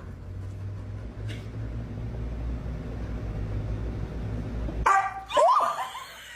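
A low rumbling background, then about five seconds in a dog gives a sudden loud bark followed by a short whine that slides up and down in pitch.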